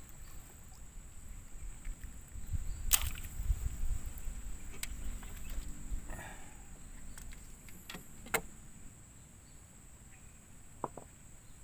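Scattered knocks and clicks of fishing gear and a mesh keep net being handled in a wooden boat, the sharpest about three seconds in, with low bumping for a few seconds after it. A steady high insect drone runs underneath.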